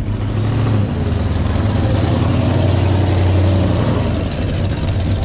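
A car engine running with a deep, steady note. It gets louder through the middle and eases off about four seconds in.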